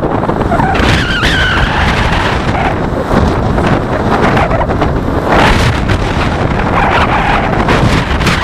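Wind buffeting the microphone with a low rumble, over road traffic passing; a brief wavering whine rises and falls about a second in and again around the middle.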